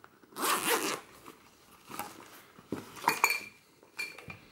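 Zipper on a camera case pulled open in one quick stroke about half a second in, followed by a few sharp, lightly ringing metallic clinks and taps as the case is handled.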